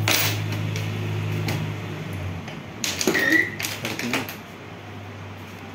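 A cardboard toothpaste carton handled and opened, with the plastic tube slid out of it: scattered clicks and papery rustles, busiest and loudest about three seconds in with a brief squeak. A low steady hum underneath fades out about two seconds in.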